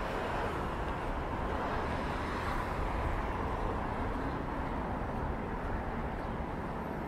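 Steady city street ambience: a continuous rumble of road traffic with no single event standing out.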